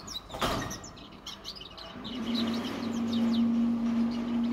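A juvenile caged songbird raised to sing goldfinch song, twittering in quick, short, high chirps. About two seconds in, a low steady hum starts underneath and lasts to the end.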